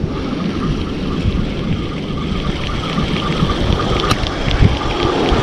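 A Penn Slammer 5500 spinning reel being cranked quickly, giving a fine rapid ticking. Under it is a steady rumble of wind on the microphone and surf, which slowly grows louder.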